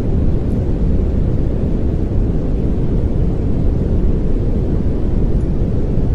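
Steady generated pink noise, a deep, even rush weighted heavily toward the low end, unchanging throughout.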